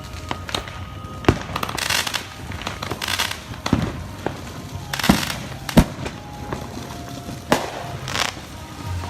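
Consumer fireworks going off: about five sharp bangs at irregular intervals, the loudest a little before six seconds in, with crackling bursts in between.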